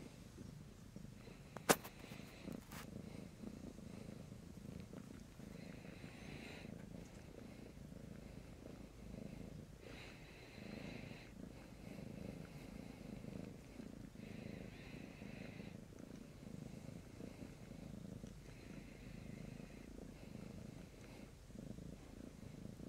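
Domestic cat purring steadily, a low pulsing rumble. A single sharp click about two seconds in.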